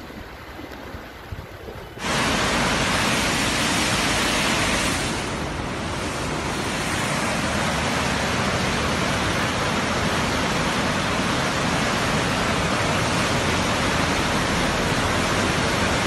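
Loud, steady rush of muddy floodwater racing down a walled channel, starting abruptly about two seconds in after a quieter stretch.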